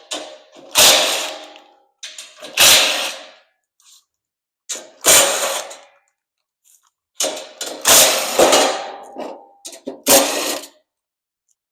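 Power driver with a 10 mm socket backing screws out of a motorcycle's metal shipping crate, in about five short whirring bursts of about a second each with pauses between.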